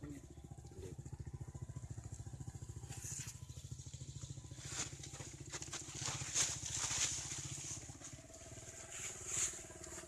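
An engine running steadily with a rapid low throb, with rubbing and crackling from the phone being handled and moved, loudest about two-thirds of the way in. A steady hum joins in near the end.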